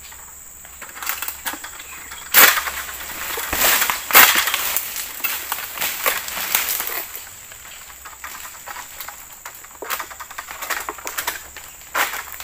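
Long-pole palm sickle (egrek) being pulled through an oil palm frond in the crown: sharp cracks about two and four seconds in, with a stretch of rasping and crackling between them as the blade tears through, then smaller snaps and rustling near the end. A thin steady insect drone runs underneath.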